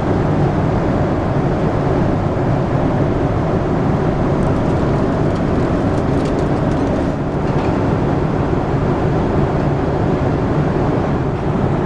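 Steady cabin noise of a Boeing 747-400 in flight: the even hum of the engines and airflow, heaviest in the low range, with no changes.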